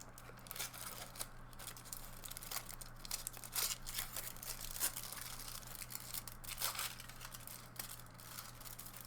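Gold foil wrapper of a chocolate square crinkling and tearing as it is peeled open, in a run of short, irregular rustles.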